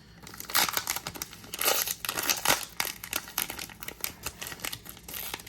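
A trading-card pack wrapper being crinkled and torn open by hand, in a run of irregular crackles that starts about half a second in.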